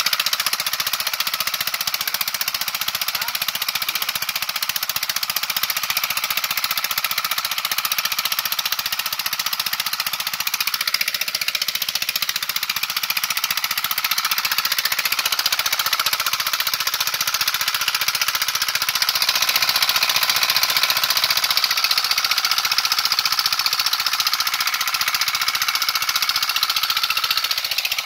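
Small single-cylinder Greaves engine running steadily with a rapid, even beat while it drives a centrifugal water pump. The rush and splash of the pump's outflow hitting the ground and the pond runs under it.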